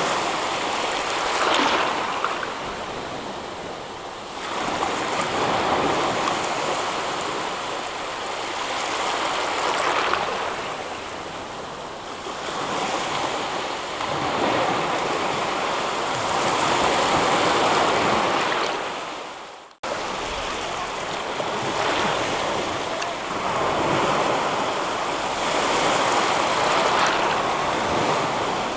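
Ocean waves washing onto the shore, a steady surf hiss swelling and falling back every few seconds. About twenty seconds in, the sound dips away abruptly and cuts straight back in, as at an edit.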